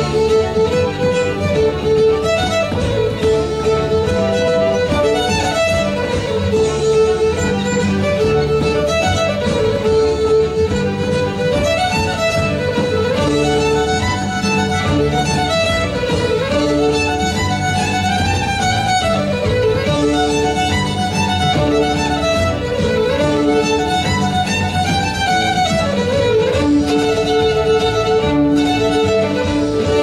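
Fiddle playing an Irish tune from a medley of jigs and reels, its melody running in repeated up-and-down phrases over held lower notes from accompanying instruments.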